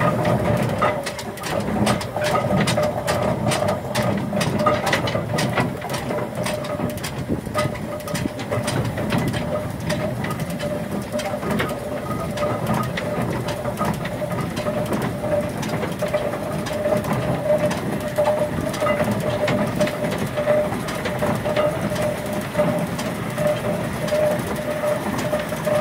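1912 McLaren steam road locomotive running at a slow pace: its motion and gearing clatter in a quick run of clicks, thickest in the first third, over a low rumble, with a steady tone running throughout.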